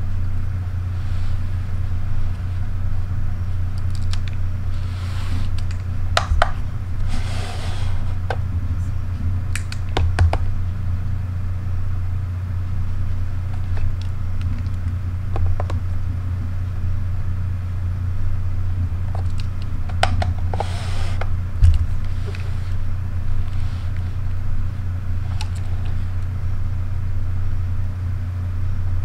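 A steady low hum with scattered light clicks, taps and brief rustles as cameras are handled and set down on a plastic kitchen scale.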